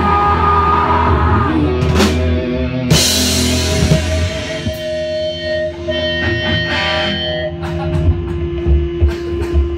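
Rock band playing live: distorted electric guitar and a Mapex drum kit, with cymbal crashes about two and three seconds in. After that the playing thins out to held, ringing notes and scattered drum hits.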